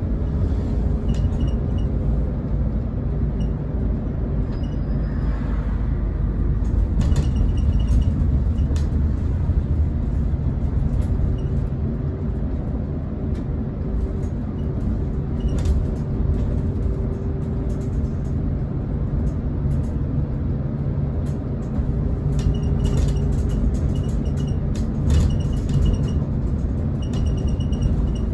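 Interior sound of a Scania K410EB coach under way: the rear-mounted six-cylinder diesel and road noise make a steady low rumble with a faint hum over it. Now and then light clicks and rattles from the cabin.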